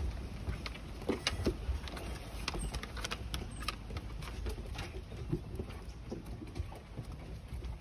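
Small puppy paws pattering and claws clicking on wooden deck boards in quick, irregular taps as the puppies walk and play, over a low rumble.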